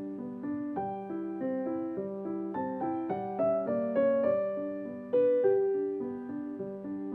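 Solo Steinway grand piano played live: an even, flowing figure of broken-chord notes over a held low note, with a louder chord struck about five seconds in.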